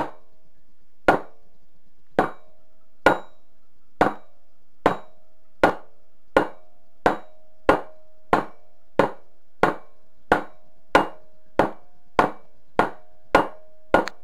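Rubber mallet striking a motorcycle rear sprocket carrier again and again, driving the sprocket bearing into its seat. There are about twenty blows, each with a short metallic ring, speeding up from about one a second to nearly two a second.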